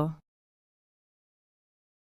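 The end of the spoken word "armadillo", cut off a fraction of a second in, then complete silence.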